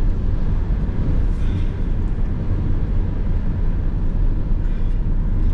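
Steady low road and engine rumble heard inside the cab of a Volkswagen Crafter van driving at speed.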